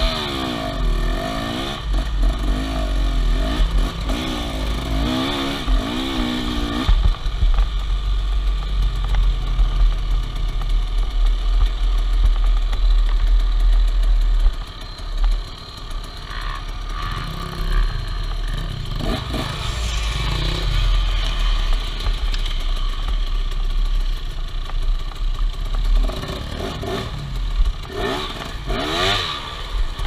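KTM enduro dirt bike engine running under the rider, revving up and down in quick swells as the throttle is worked over rough trail. It drops off briefly about halfway through, then picks up again.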